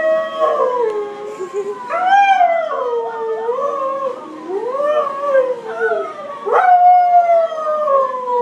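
Husky howling: several long, wavering howls that rise and fall in pitch. The last one climbs sharply about two-thirds of the way in, then slides slowly down.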